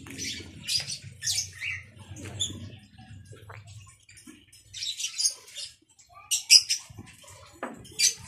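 A person slurping and sipping from a bowl, several wet sips and lip smacks in short bursts. A low hum runs under the first half and fades out about four seconds in.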